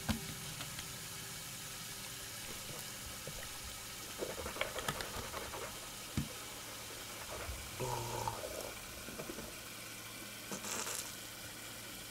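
Faint running water from a washbasin tap, with a few small clicks and knocks of toiletries being picked up and set down on the bathroom shelf, and a short splash or hiss near the end.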